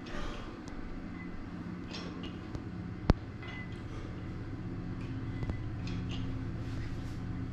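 Plate-loaded dumbbells being curled, with one sharp metallic clink of the plates about three seconds in and a few fainter knocks, over a steady low hum.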